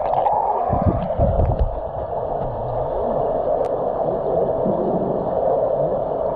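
Muffled swimming-pool water heard from a microphone held underwater: a steady rushing hum, with a few low thuds about a second in.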